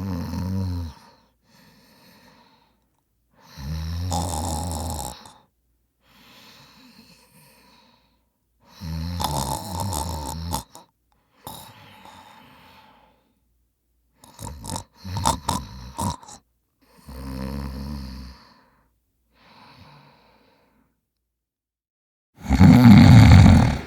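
A person snoring: a loud snore about every four to five seconds, with much fainter breaths between. One snore about fourteen seconds in breaks into a fluttering rattle, and the loudest comes near the end.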